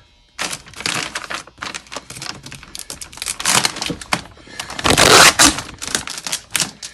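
Rapid irregular clicks, knocks and rustling as cabinet parts and their packaging are handled and unpacked, with a louder burst of rustling about five seconds in.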